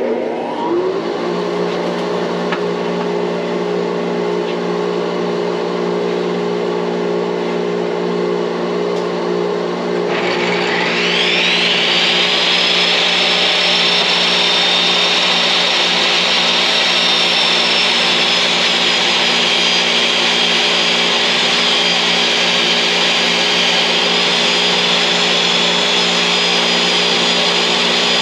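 A dust collector runs with a steady motor hum. About ten seconds in, a jobsite table saw's motor spins up with a rising high whine and then runs steadily, ready to rip 2x4s in half.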